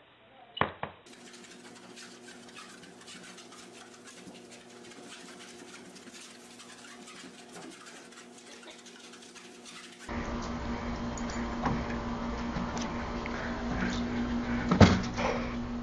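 A treadmill running with a faint steady hum and light clicks. It gives way to a louder steady hum with scattered clattering knocks, the loudest a sharp knock near the end.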